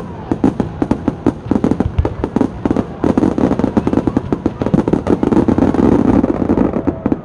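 Aerial fireworks going off in a dense, rapid barrage of bangs and crackles, many per second, that stops abruptly near the end.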